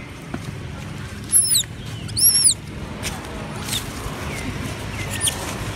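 Young macaque squealing: two short, very high-pitched squeals less than a second apart, each arching up and then falling away, and a fainter squeak near the end.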